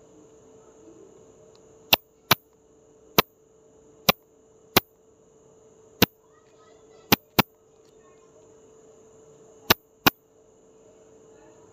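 About ten sharp, loud clicks at uneven intervals, some coming in quick pairs, over a steady high thin tone and a low hum.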